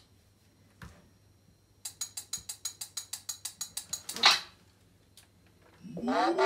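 VanMoof S3 e-bike unlocking: a rapid run of ticks, about ten a second for roughly two seconds, then one louder swish. Near the end the bike's electronic unlock chime starts, a tone gliding upward and settling into a steady chord.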